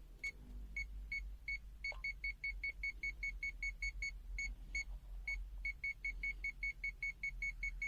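Aneng AN-V03B multimeter's non-contact voltage (NCV) detector beeping: a train of short high-pitched beeps, about two a second at first, then speeding up to about four or five a second about two seconds in. There is a short gap near five seconds before the beeping picks up again. The beeping signals that the meter is sensing a live AC voltage field.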